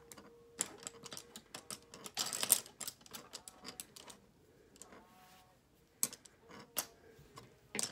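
An eyeshadow palette box being handled: a series of small clicks and taps, with a brief rustling scrape about two seconds in.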